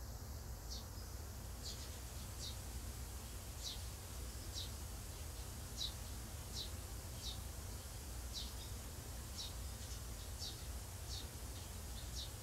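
A young Eurasian tree sparrow gives short, high chirps over and over, a little more than one a second, with a low steady rumble underneath.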